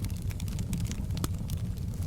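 Open log fire burning in a fireplace: a steady low rumble of the flames with many small irregular crackles and pops, one sharper snap about a second in.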